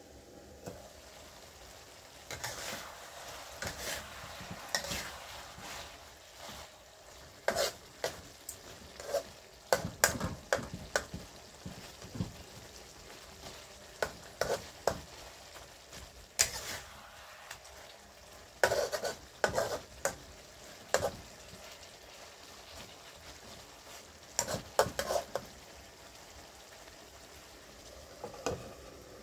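Steel spatula scraping and clanking against a steel wok in irregular strokes, while pork pieces sizzle in the sauce.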